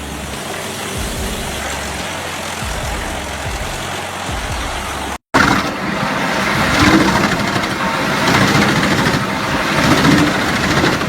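Heavy wood-processing machinery running: a steady engine-driven machine, then after a sudden break about five seconds in, a louder machine grinding and crushing wood, with uneven swells.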